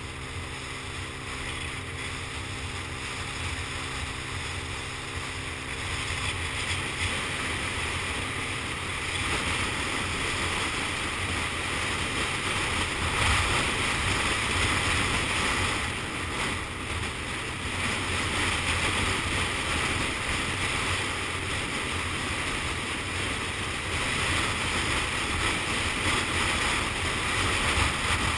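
Wind rushing over the microphone of a motorbike riding along an open road, with the bike's engine running steadily underneath. The wind grows louder about six seconds in.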